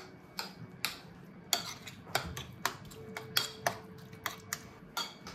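Metal spoon clinking and scraping against a ceramic plate in irregular taps, roughly three a second, as tahini is stirred into mashed aubergine for baba ganoush.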